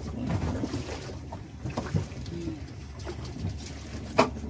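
Steady low hum of a fishing boat at sea, with a sharp knock about four seconds in.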